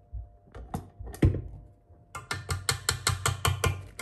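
A wire whisk attachment is unclipped from a stand mixer with a few sharp clicks and knocks, then rapped quickly against the rim of a stainless steel mixing bowl, about seven metallic taps a second, to shake off thick nut batter.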